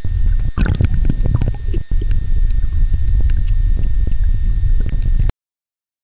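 Water noise picked up by a camera held underwater: a heavy low rumble with scattered clicks, cutting off suddenly about five seconds in.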